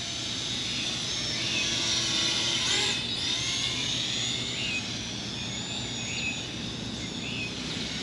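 Parrot Anafi quadcopter drone in flight, its propellers whining steadily, with the pitch sliding up and down as the motors change speed while it manoeuvres.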